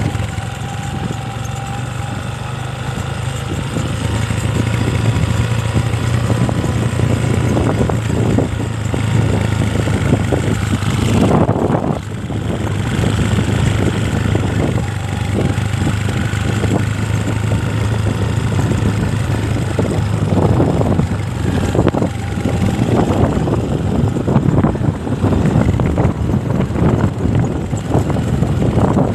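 Small motorcycle engine running steadily, mixed with rough, irregular noise.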